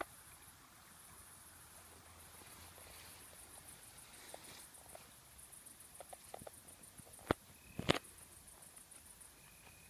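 Crickets chirping, a faint high-pitched pulsing trill that goes on throughout. A few soft clicks come in the middle, and two sharp knocks come about seven and eight seconds in.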